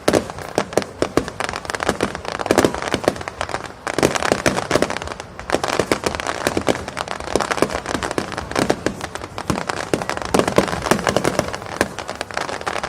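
Fireworks going off in a dense, unbroken barrage: many sharp bangs and crackles a second, overlapping into a continuous rattle.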